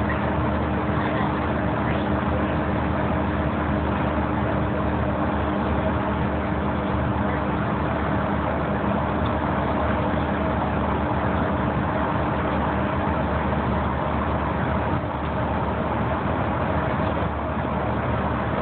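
Transit bus cruising at freeway speed, heard from inside the passenger cabin: a steady drone of engine and tyre-on-road noise with a faint constant hum underneath.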